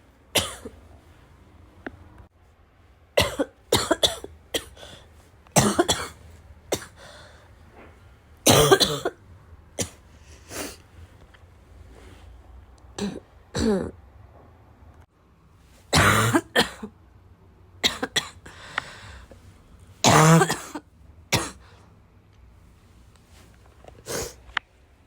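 A person coughing in about ten short bouts, each of one to three wet, chesty coughs, a second or a few seconds apart.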